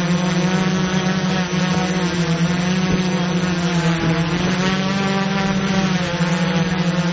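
Multirotor drone's propellers humming at a steady pitch, the tone sagging slightly and recovering about four seconds in.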